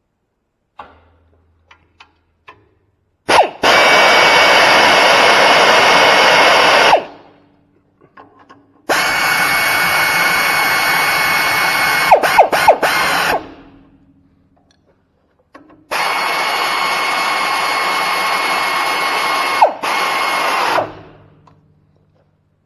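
Electric motor of a John Deere skid loader's Quick Tatch pin actuator running three times for about four seconds each, with a steady whine and a few clicks, as the attachment pins are driven in and out to test the newly replaced wire harness.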